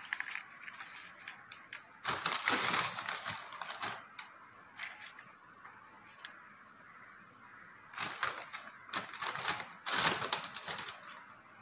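Ridged potato wafers being handled and dropped onto a plate, crisp crackling and rustling in several bursts with quieter gaps between.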